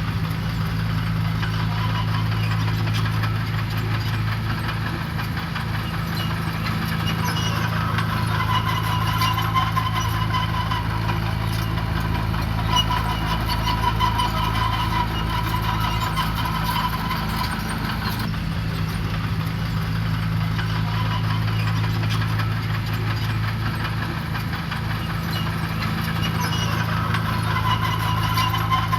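Diesel engine of heavy earthmoving machinery running steadily, with a higher whine that swells and fades a few times.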